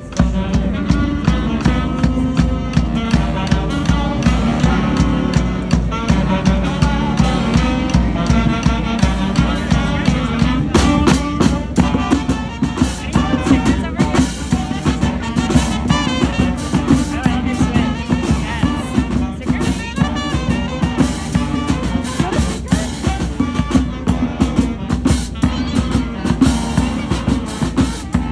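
Street band playing live with a steady beat. The full band comes in loudly right at the start and keeps playing throughout.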